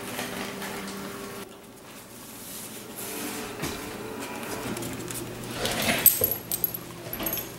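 Chesapeake Bay Retriever puppy moving about, with light metallic jingling and clicks, most of them about six seconds in while it plays with an older dog.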